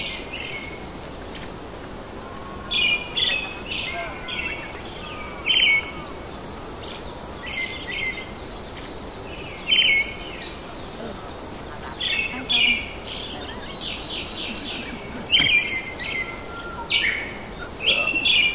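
A forest bird calling repeatedly in short, chattering phrases every one to three seconds, over a steady background hiss.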